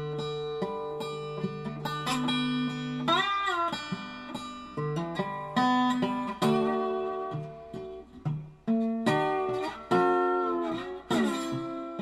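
Outro music: a solo acoustic guitar playing a run of plucked notes, some of them bent or slid in pitch.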